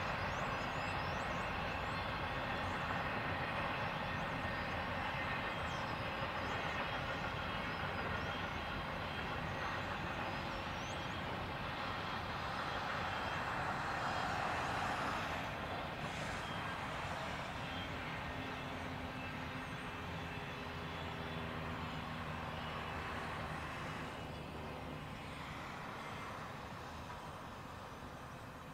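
Long train of empty double-stack container well cars rolling past: a steady rolling noise of steel wheels on rail with faint short high squeaks in the first half, slowly fading near the end.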